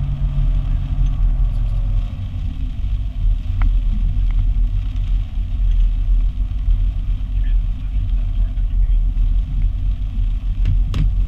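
Steady low rumble of a fire brush truck's engine and road noise, heard from inside the cab while driving, with a couple of sharp clicks near the end.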